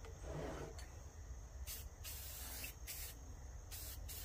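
Aerosol spray-paint can spraying black paint in a string of short hissing bursts, about six in four seconds.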